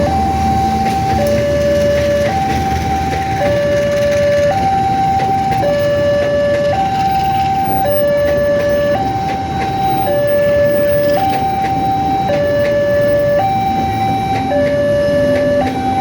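Railway level-crossing warning siren sounding a two-tone alarm: a higher and a lower tone take turns, each held about a second, repeating steadily. Under it runs a steady rushing background noise.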